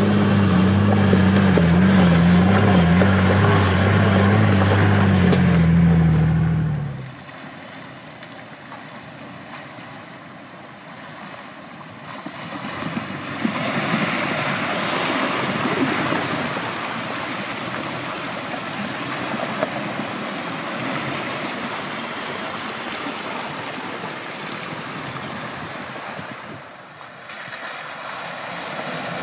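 An off-road 4x4's engine running hard, its pitch wavering, for about seven seconds, then cutting off abruptly. After that, a steady rushing noise that grows a little louder partway through.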